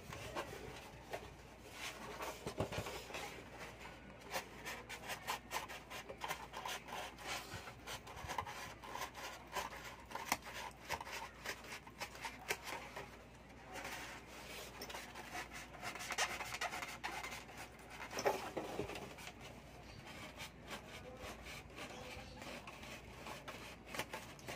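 A thin blade sawing through a styrofoam box lid, cutting out a round hole: many short, irregular scraping strokes of the blade against the foam.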